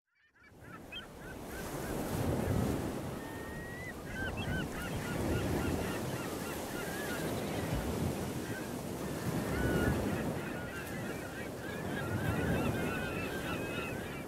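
Surf washing on a beach in slow swells, with many short bird calls chirping over it.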